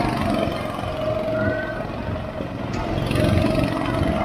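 Go-karts running on the track, their small engines making a steady drone.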